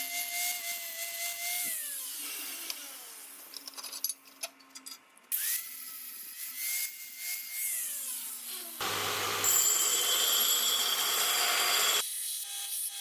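A power drill runs with a steady whine and spins down, then speeds up again, runs and spins down a second time. About nine seconds in, a loud harsh rasping like filing or sanding takes over for about three seconds.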